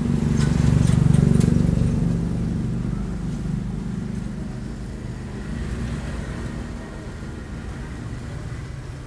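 A motor vehicle's engine passing close by, at its loudest about a second in, then fading into a steady traffic rumble.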